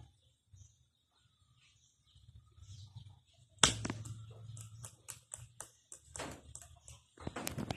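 Japanese spitz puppies' claws clicking and scrabbling on a glazed tile floor as they scamper. Mostly quiet at first, then about halfway in a sharp click followed by a quick run of taps.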